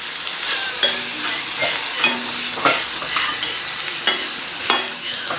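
Onions and fermented bamboo shoots, with turmeric just added, sizzling in hot oil in a pan while a spoon stirs them. The spoon knocks and scrapes against the pan about eight times, over a steady sizzle.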